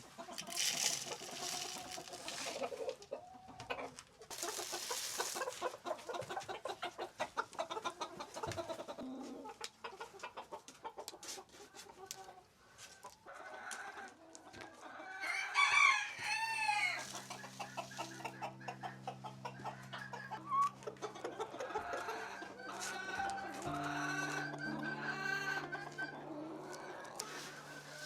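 A flock of chickens clucking and calling, with a rooster crowing just past the middle, the loudest moment. Soft background music with long held notes comes in during the second half.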